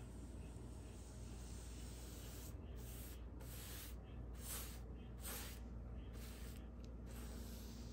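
Angled paintbrush stroking paint onto a textured wall: faint swishing strokes, about six in quick succession from a few seconds in.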